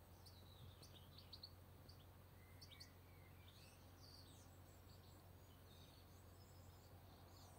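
Faint birdsong: many quick chirping notes from small birds, busiest in the first few seconds, over a low steady hum.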